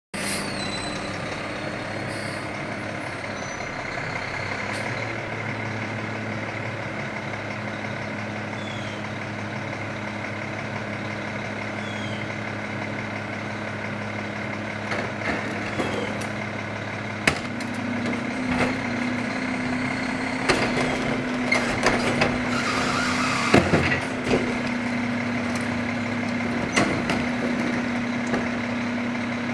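Rear-loader garbage truck's diesel engine running steadily. About halfway through it speeds up, and knocks and clatter follow as a plastic wheelie bin is tipped into the hopper and emptied.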